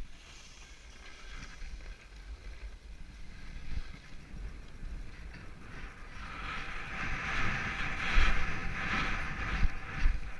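Skis sliding through tracked powder snow: a rough hiss that grows louder about six seconds in as the skier picks up speed, with wind gusting on the microphone.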